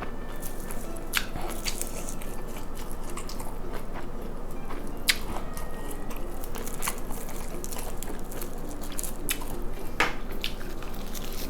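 Close-miked eating sounds: a person chewing and biting food with irregular sharp, wet mouth clicks and smacks. The strongest clicks come about a second in, about halfway through, and near the end.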